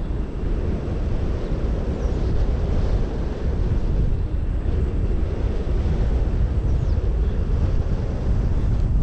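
Airflow buffeting the microphone of a paraglider pilot in flight: a steady rush of wind noise, mostly low in pitch.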